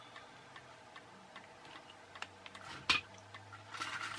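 Light handling clicks and taps of a small circuit board and loose kit resistors being handled, with one sharp click about three seconds in and a brief rustle near the end.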